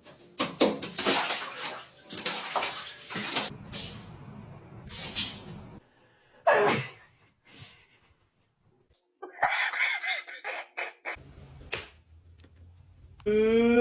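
Water splashing in several irregular bursts, with a pause of a few seconds partway through.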